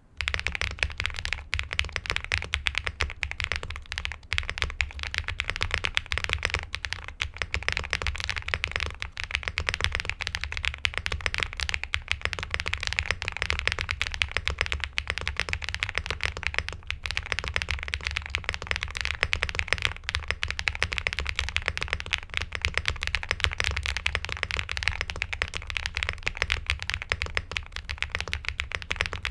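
Continuous fast typing on an XVX K75 Pro mechanical keyboard with a CNC aluminium case, XVX Medium Purple switches and Cherry-profile double-shot PBT keycaps: a dense, unbroken stream of keystrokes.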